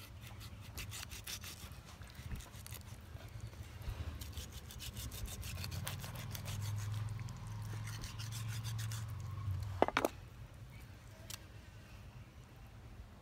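Kitchen knife sawing and scraping through trigger fish flesh and skin on a cutting board, in runs of quick repeated strokes. A short, sharp pitched sound stands out about ten seconds in.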